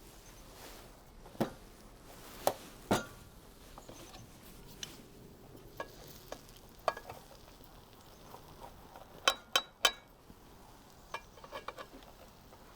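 Utensils clinking and knocking against dishes and cookware in scattered sharp strikes, with three quick loud ones close together about nine seconds in.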